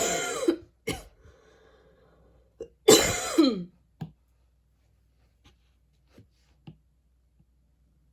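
A woman coughing hard: a loud, harsh cough at the start and another about three seconds in, each followed by a short cough. A few faint throat sounds follow.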